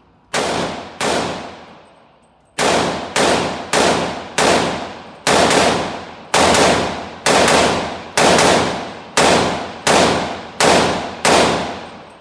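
About fifteen single gunshots from a 300 Blackout AR-15 pistol with an 8.5-inch barrel: two shots, a pause of about a second and a half, then a steady string of roughly one shot every second, each followed by a long echoing decay.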